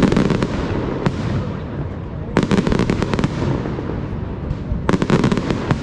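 Aerial fireworks display: clusters of sharp bangs and crackles from bursting shells, in about four volleys, over a steady low rumble.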